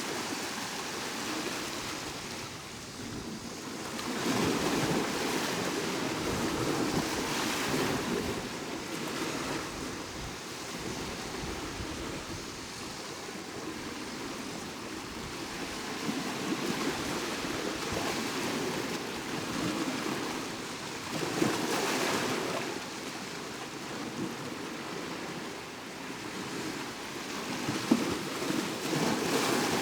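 Sea waves breaking and washing on a shore, a steady rush that swells with each breaker every few seconds.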